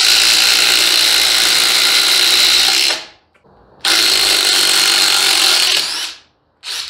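DeWalt cordless impact drivers on high speed hammering Spax screws into wood. The loud rapid impacting stops about three seconds in, starts again for about two seconds, then gives a short burst near the end.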